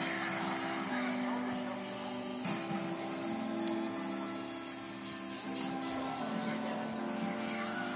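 Eerie music of slow, held low notes that step from pitch to pitch, over steady cricket chirping at a little under two chirps a second.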